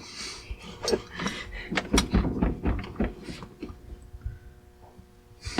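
Irregular knocks and clunks as the stock steering wheel of an SN95 Ford Mustang is rocked and pulled to break it loose from the steering column shaft, where it is stuck tight. The knocking dies down near the end.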